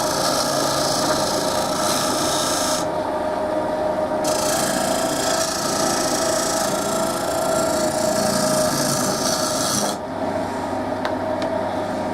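Wood lathe running steadily while a hand-held turning tool cuts the outside curve of a wooden cup blank, a scraping cut over the motor's hum. The cut lifts off briefly about three seconds in, resumes, and stops about ten seconds in, leaving the lathe running alone.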